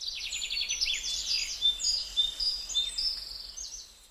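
Birdsong: several birds chirping, with rapid trills and short high whistles overlapping, fading out near the end.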